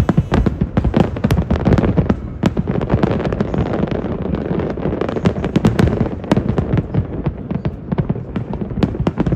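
Aerial fireworks display: shells bursting in a rapid barrage, many sharp bangs close together with crackling between them.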